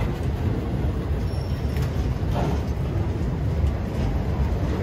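Continuous welded rail train's loaded flatcars rolling past: a steady low rumble of steel wheels on the track, with a few light clicks.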